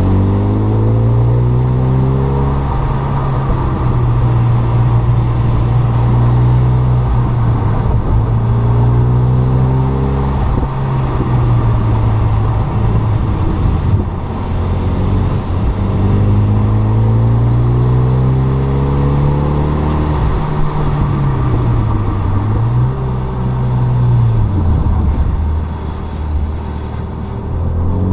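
Stage 2 tuned Renault Mégane 3 RS's turbocharged 2.0-litre four-cylinder engine under load, its pitch climbing as the car accelerates and holding, then falling as it lifts off or changes gear. This happens several times, with short dips a little past the middle.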